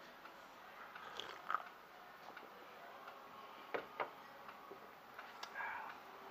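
Faint sipping from a coffee mug, then a few light clicks and taps as small things are handled on a workbench, two sharper ticks close together a little before the middle.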